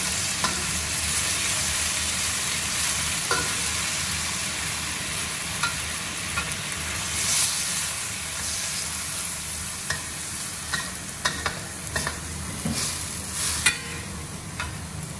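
Cabbage and meat sizzling as they are stir-fried in a stainless steel wok, with a metal spatula scraping and clicking against the pan. About halfway through, liquid is poured into the hot wok and the sizzle flares up; sharp spatula clicks come more often near the end.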